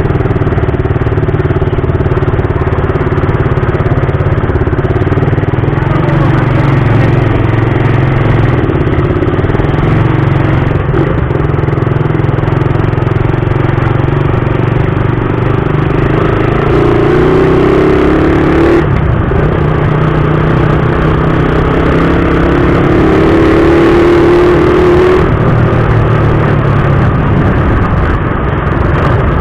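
Suzuki Raider 150 motorcycle's single-cylinder four-stroke engine running while riding, its note rising twice as it accelerates: once past the middle, cut off by a short break, and again a little later.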